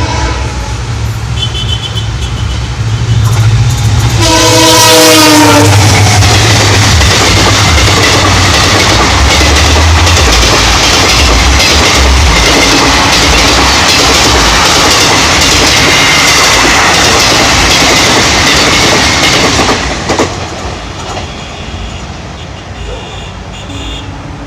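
WDG4 diesel locomotive rumbling on approach, then sounding its horn once, loudly, for about a second and a half, about four seconds in. The train then rushes past at high speed, its wheels clattering over the rails, and the noise drops away sharply near the end.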